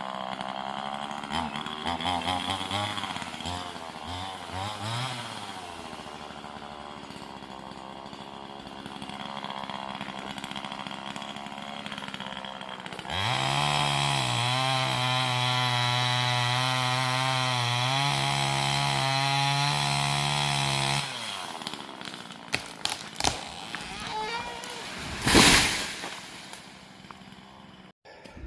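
Chainsaw engine idling and revving unevenly, then held at full throttle for about eight seconds, with a brief dip partway through, before it shuts off. A few knocks and one loud short burst of noise follow near the end.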